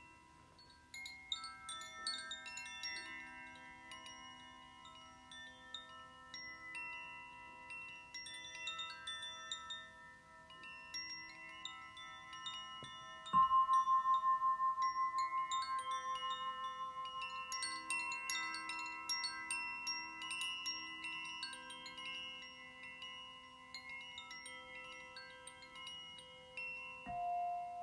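Crystal harp, crystal singing bowls and Shanti chimes played together: many light tinkling chime strikes over long ringing tones. About 13 seconds in a clear tone is struck loudly and pulses as it slowly fades, and a lower tone is struck near the end.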